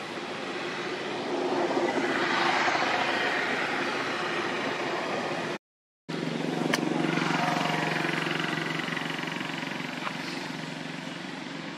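A motor vehicle passing, its engine and road noise swelling and then fading. After a brief dropout in the sound, another passing vehicle's engine hums steadily and fades away.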